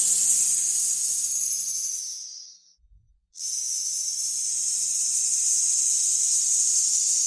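A snake hissing in two long exhalations: one fading away about two and a half seconds in, then after a short pause a second, longer hiss, high-pitched and airy.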